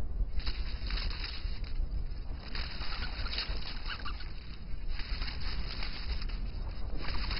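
Irregular rustling and scratching of a small forest rodent scrabbling through snow in search of nuts, over a steady low rumble.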